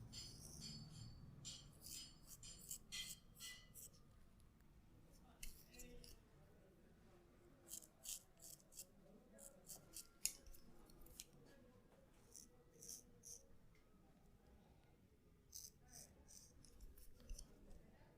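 Barber's scissors snipping hair close to the microphone: quick runs of crisp, quiet clicks with short pauses between the runs.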